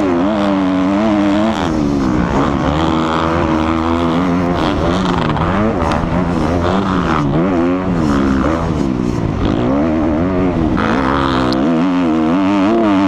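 Kawasaki KX250F four-stroke motocross bike engine at race pace, its pitch climbing and dropping again and again as the throttle is worked through the corners and gears, with wind rush over a helmet-mounted camera.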